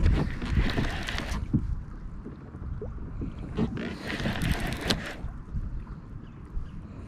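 Wind buffeting the microphone over water splashing against a small fishing boat's hull, with two louder swells of noise, one at the start and one about four seconds in.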